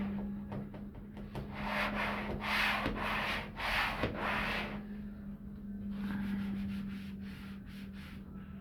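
Repeated rubbing strokes over freshly hung wallpaper as the paper is smoothed down along a double-cut seam, the strokes closest together and loudest in the middle, over a steady low hum.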